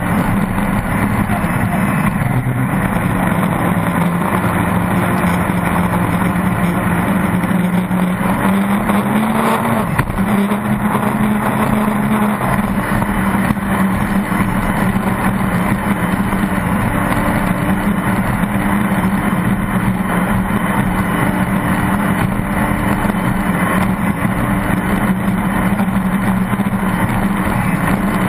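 Pro Stock race boat's engine running hard at a steady high speed, heard onboard over wind and water rush. Its pitch climbs briefly about ten seconds in, dips, then holds steady again.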